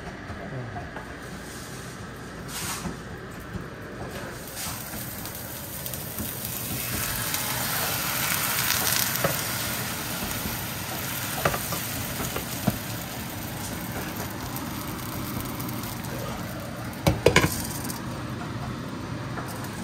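Bánh xèo batter ladled into a hot oiled frying pan, sizzling: the sizzle swells a few seconds in, then holds steady, with a few sharp clinks. Near the end a glass pan lid clatters down onto the pan.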